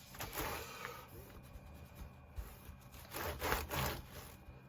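Wiping or rubbing strokes on a MacBook's surface, a short one at the start and a longer, louder one about three seconds in.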